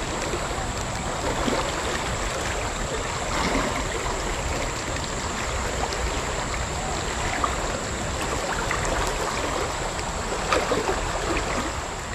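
Shallow river flowing over rocks, a steady rushing and burbling of water.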